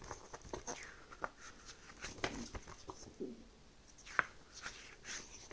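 Paper rulebook being opened and its pages handled: faint paper rustles and soft ticks, a few sharper ones about four seconds in.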